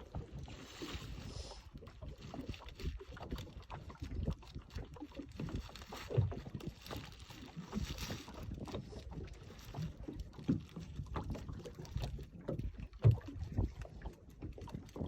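Water lapping and slapping against the hull of a small aluminium boat in irregular low knocks, with two brief spells of soft hiss, one about a second in and one about halfway. A sharper thump comes near the end.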